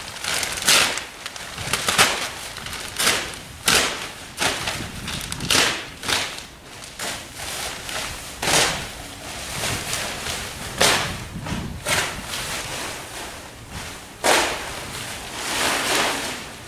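Black polythene silage sheet being dragged and flung about on a maize silage clamp, rustling and crackling in repeated sharp swishes at irregular intervals of about a second.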